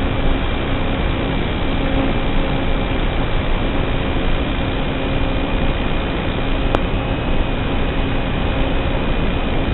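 A small motor running at a steady speed, a constant hum under a loud, even rushing noise, with one sharp click about seven seconds in.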